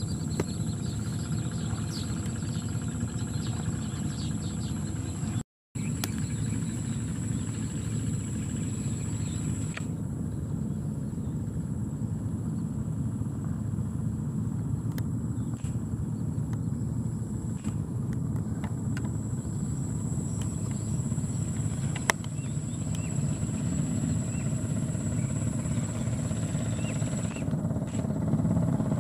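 Steady low wind rumble buffeting the microphone in an open field, with a faint thin high tone over it and a few faint clicks. The sound drops out briefly about five seconds in.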